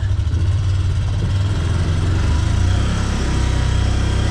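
Can-Am Defender side-by-side's engine running steadily as it drives, heard from inside the cab: a continuous low drone with no change in pace.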